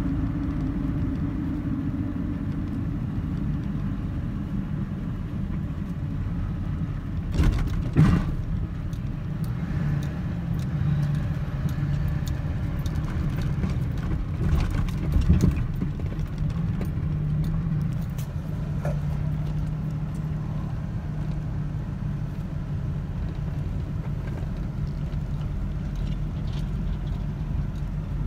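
Engine and tyre rumble heard from inside a vehicle's cab while driving, with a steady low engine hum. A couple of sharp knocks and rattles come about a quarter of the way in and again about halfway, as the vehicle moves onto a rough gravel quarry road.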